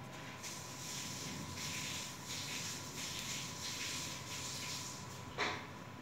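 Stepper motor turning under keypad position control, a hissing whir for about five seconds that then stops. A single sharp click near the end, over a faint steady high whine.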